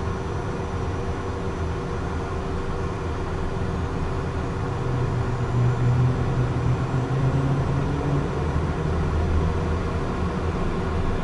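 Cessna Citation jet's turbofan engines running steadily as the left engine spools up on its starter after light-off, its pressures and temperatures coming up. The low rumble swells about five seconds in.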